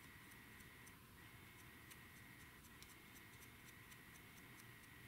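Near silence: room tone with a faint steady high whine and scattered faint ticks.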